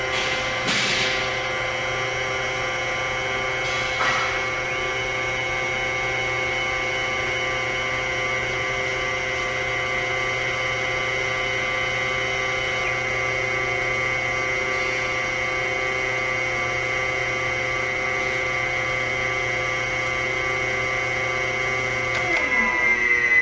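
Harig EZ Surf II CNC surface grinder running, with a steady high whine from its wheel spindle and motor over a low mains hum, and a couple of sharp knocks in the first few seconds. Near the end the whine falls in pitch as the spindle is switched off and winds down.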